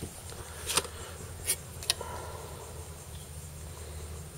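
Handling sounds of a kitchen knife being drawn out of a fabric knife bag: three short rustles and clicks in the first two seconds, over a steady low hum.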